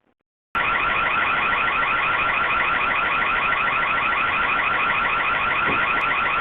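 Electronic security siren going off loud and steady with a rapid warble, starting abruptly about half a second in: an intruder alarm set off against a car thief.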